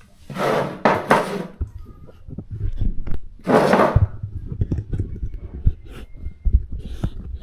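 Plastic keyboard keycaps being washed by hand in a basin of soapy water: two short swishing noises, then a run of irregular small knocks and clunks as they are handled.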